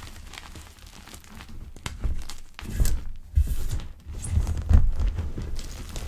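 Chalk pebbles being crushed: a run of soft crunches and crackles, with heavier low pressing thuds in the second half.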